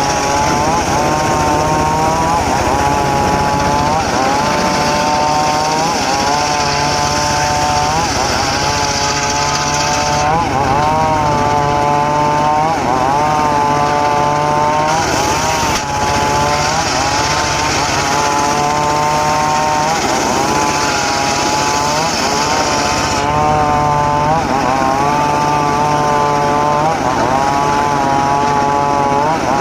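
Engine-driven circular sawmill cutting teak logs: a steady engine note whose pitch sags and recovers every couple of seconds as the blade takes and sheds load. A higher hiss comes and goes in long stretches.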